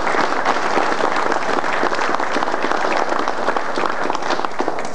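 Audience applauding: a steady crowd of many hands clapping.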